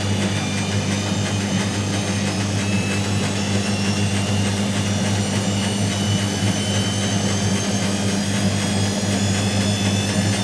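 Whirlpool AWG023 top-loading washing machine running: a steady motor hum with a faint high whine that slowly rises in pitch as the drum speeds up.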